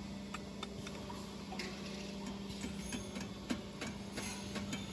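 Steady low hum from a conveyor roller bearing assembling machine, with irregular light metallic clicks and knocks as a steel roller tube is handled and set between the machine's chucks.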